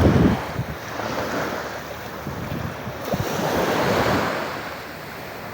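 Sea surf washing in and drawing back, with wind buffeting the microphone. A surge at the start eases, another swells about four seconds in, then it dies down.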